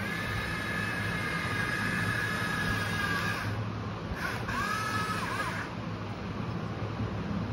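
Small electric motors and plastic gearboxes of a toy RC tracked excavator whining as it drives and swings. The whine wavers and glides in pitch, breaks off about halfway through, then returns briefly before stopping.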